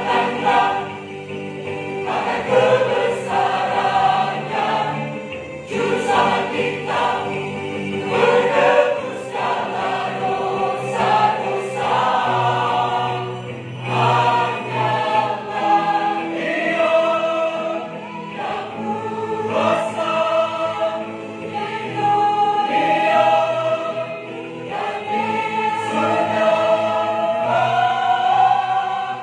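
Mixed church choir of men and women singing a hymn together, with sustained and moving sung notes.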